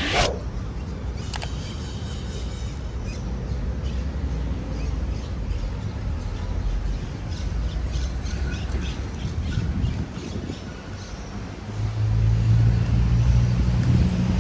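City park ambience: a steady low rumble of street traffic with small birds chirping in the trees, opened by one sharp squawk that falls in pitch. About twelve seconds in, a motor vehicle's engine hum comes up and grows louder.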